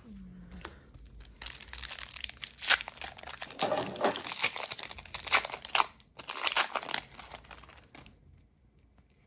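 Foil Pokémon TCG booster pack wrapper being handled, torn open and crinkled: a dense, crackly rustle of thin plastic foil that runs for several seconds and dies down near the end.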